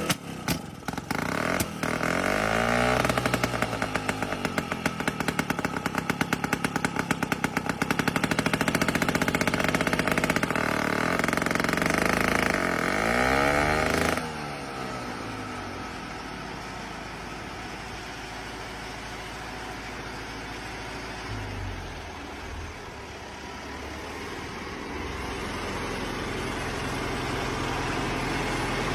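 Engine of a restored Soviet HTZ crawler tractor-bulldozer running loudly with a fast, rattling beat. About halfway through it drops abruptly to a quieter, steadier running that grows a little louder near the end.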